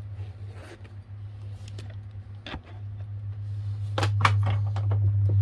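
A steady low hum that grows louder toward the end, with clicks and knocks of the camera setup being handled on a table: one knock about two and a half seconds in, and a quick run of clicks a second or so later.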